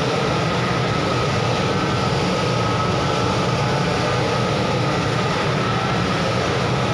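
Adhesive tape coating machine running: a steady mechanical hum and whir from its motor and rollers, with a thin steady whine over it.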